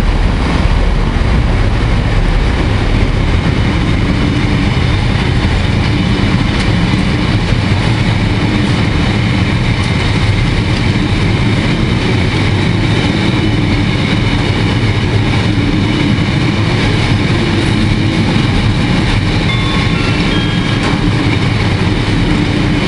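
Heavy goods train passing at close range: its box and hopper wagons roll by with a steady, loud rumble and the clatter of wheels on the rails.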